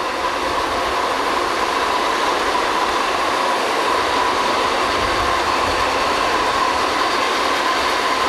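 Steady machinery noise from a drilling rig site: a continuous rushing hum with a steady whine held at one pitch.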